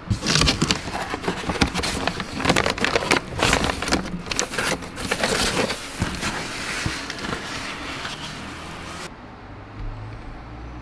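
Foam packing sheet and plastic wrapping rustling and crinkling as they are handled and pulled out of a cardboard box, with irregular crackles. It stops abruptly near the end.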